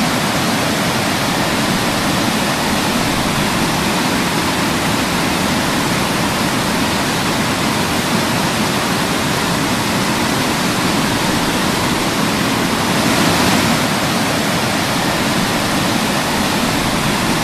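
Waterfall and its river cascade in spate after heavy rain: loud, steady rushing of water over rocks.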